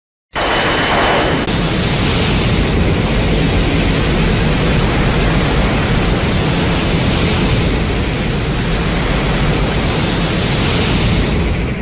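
Heisei-era Burning Godzilla film sound effect: a loud, even rushing noise with no clear pitch. It starts suddenly just after the start, runs steadily for about eleven seconds and fades out at the end.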